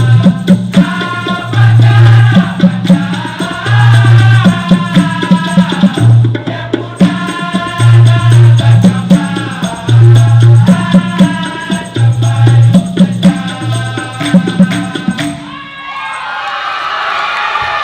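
Dikir barat ensemble playing a lively passage: deep drum strokes in a repeating pattern, maracas shaking, and a melody over them. The music stops abruptly about three seconds before the end, and audience cheering swells after it.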